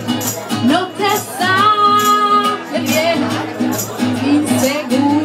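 Live acoustic song: a voice singing held and sliding notes over a strummed acoustic guitar, with a tambourine jingling in rhythm.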